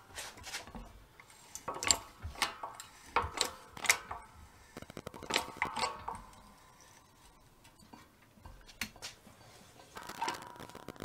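A 12-ton hydraulic shop press being pumped to force a square rebar broach through steel plate: irregular metallic clicks and clanks, with a quieter stretch of a few seconds past the middle.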